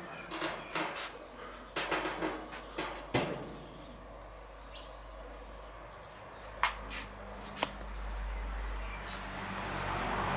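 Scattered clicks and light knocks from stainless-steel gas grill parts being handled, several in the first three seconds and two sharp ones later, over a low rumble that grows in the second half.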